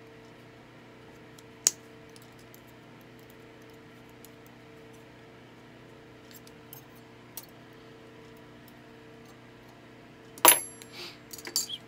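Steel pliers and a silverware fork clicking and ticking against each other as the fork tines are bent flat, with one sharp click about two seconds in. About ten seconds in comes a loud, ringing metal-on-metal clink, then a few more clinks. A steady hum runs underneath.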